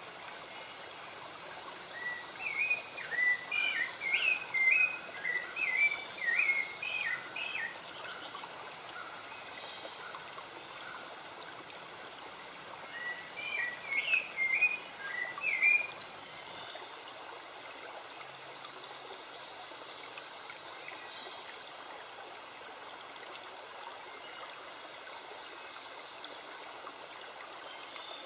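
Steady rush of running water, with a songbird singing two phrases of quick repeated warbled notes, one a couple of seconds in and another about halfway through.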